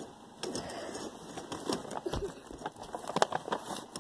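Rustling with scattered light clicks and knocks as things are handled and shifted, close to the phone's microphone while it is jostled.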